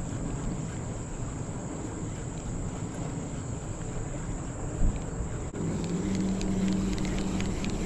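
Wind rumbling on the microphone, with one short thud about five seconds in. About five and a half seconds in, the sound switches abruptly to a steady low hum with faint ticking above it.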